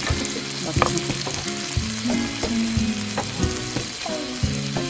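Food frying and sizzling in a hot pan, a steady crackling hiss.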